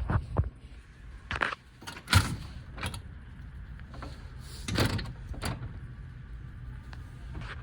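Strong wind buffeting the microphone as a steady low rumble, broken by a series of sharp clatters as something knocks in the gusts.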